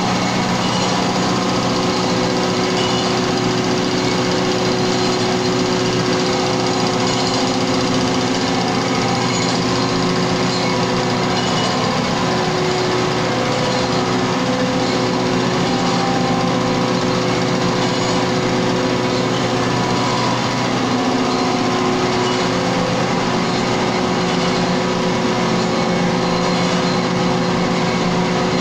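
Sawdust grinding plant running: an impact pulveriser and its blower and conveyors make a loud, steady machine drone, a hum of several steady tones over a dense hiss, without a break.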